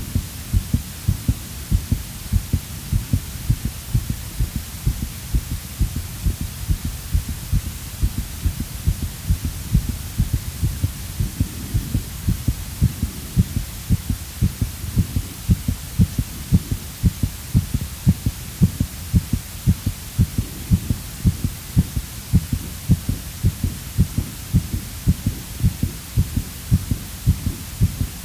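Heartbeat sound effect on the soundtrack: low, quick, regular beats over a steady low hum.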